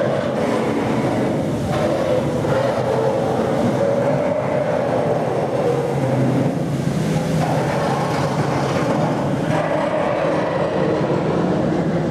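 Steady mechanical drone of a river motor ship under way: engine hum over the rush of water and wind.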